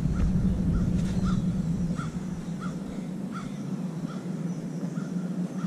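A bird gives a rapid series of short, evenly repeated calls, roughly two to three a second, over a steady low hum.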